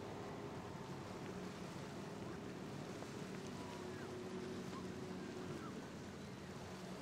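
Motorboat engines running as boats pass through the inlet: a steady drone that drops away about five and a half seconds in, over a steady hiss of wind and water.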